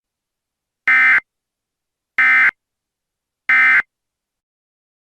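EAS end-of-message (EOM) data tones: three short, identical buzzing bursts of SAME digital data a little over a second apart, marking the end of the emergency alert message.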